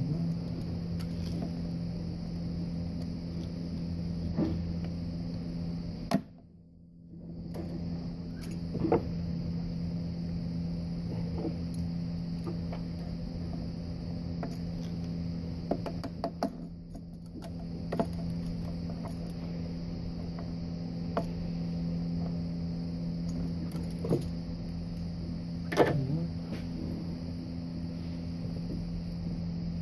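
Scattered clicks and light knocks of pliers and hand tools working around a car's plastic thermostat housing and hoses, over a steady low hum that drops out briefly twice.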